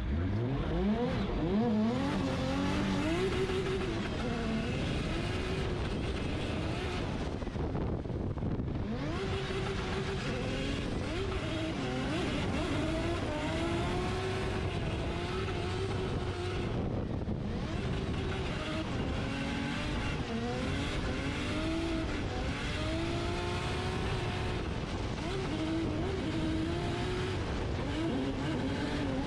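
Drift car's engine pulling away hard from the start line and revving high, its pitch rising and swinging up and down as the car is driven through the run, over a steady rush of tyre and road noise.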